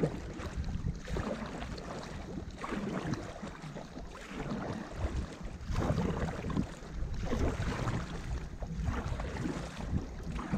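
Paddles dipping and pulling through the water in repeated strokes beside a tandem inflatable paddleboard, with wind rumbling on the microphone.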